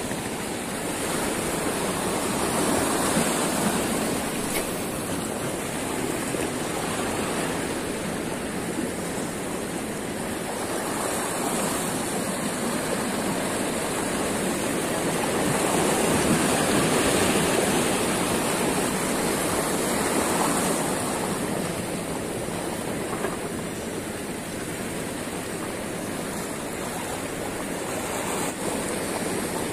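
Steady rush of choppy sea water, small waves lapping and splashing close by.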